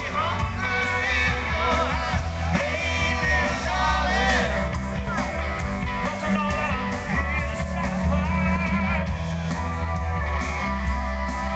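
Live band performing a song outdoors, with a singer over guitar and a steady bass line.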